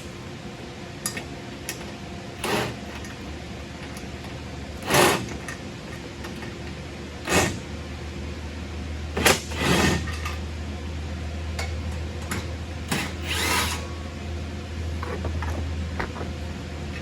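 Short bursts of a cordless power driver and scattered metal clanks and knocks, as bolts are worked on a hinged steel bed mount.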